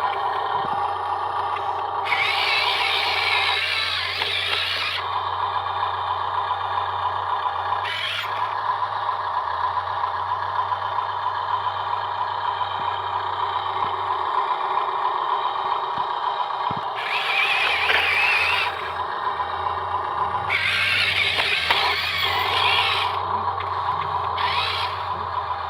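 Electric motors and gearboxes of radio-controlled model construction vehicles whining steadily as they drive, with a louder, higher whine rising in several times, about two seconds in, midway and again near the end.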